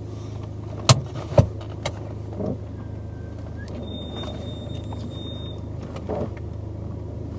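Car engine idling, heard from inside the cabin as a steady low hum, with two sharp clicks about a second in and a faint thin high tone for a couple of seconds in the middle.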